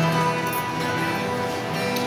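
Acoustic guitar played by hand, its chords ringing on steadily.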